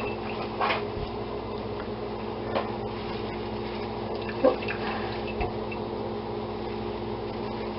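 Hot chicken cooking juices pouring from a slow cooker liner into a saucepan, with a few small splashes and drips.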